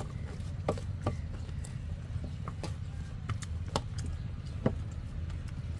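Eating by hand from steel platters: scattered soft clicks and taps of fingers and rice against the metal, with a low steady hum underneath.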